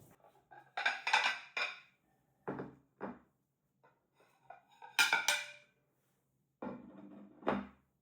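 Dishes and utensils being handled in a kitchen: clinks and clatters come in separate bursts, the sharpest about five seconds in, with duller knocks between them.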